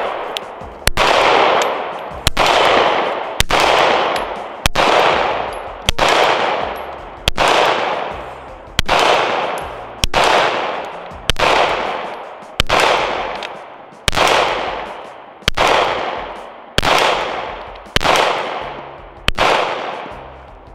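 SIG Sauer M17 (P320) 9mm pistol firing slow, aimed single shots, about fifteen at roughly one shot every second and a quarter. Each report trails off in an echo.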